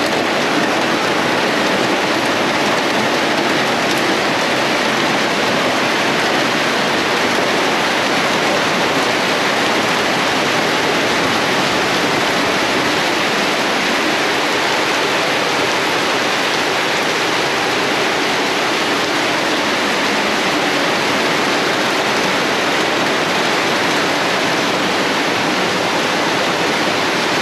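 Heavy rain falling steadily, a loud, dense, even hiss that does not let up.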